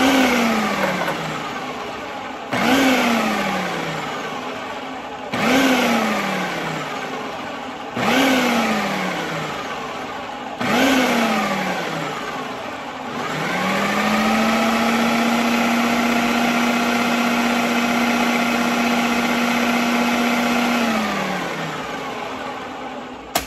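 Food processor motor pulsed five times in a row, each burst spinning up and then winding down, then run steadily for about seven seconds before spinning down. It is emulsifying oil into homemade Caesar dressing until it reaches the consistency of mayonnaise.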